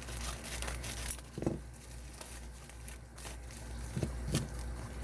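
Packaging being handled and unwrapped: intermittent rustling and crinkling with a few light clicks and knocks.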